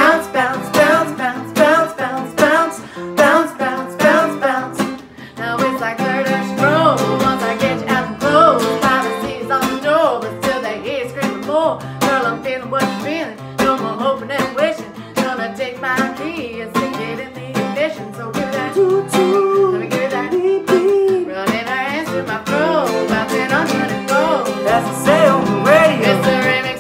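Twelve-string acoustic guitar strummed in a steady rhythm, with singing voices over it.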